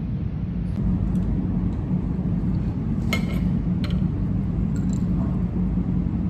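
Steady low rumble of café room noise with a couple of light clinks of glassware and tableware about three seconds in.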